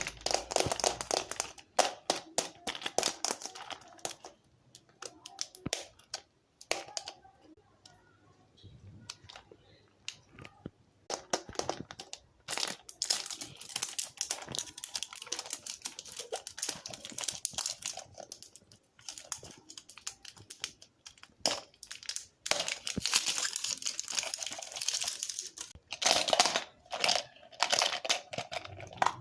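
Plastic crinkling and crackling as it is handled, in irregular bursts with quieter pauses, mixed with many sharp clicks and taps.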